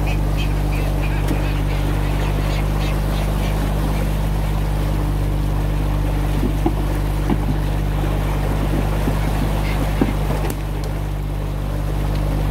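A small fishing boat's engine running steadily, with water washing along the hull. A few light knocks come midway.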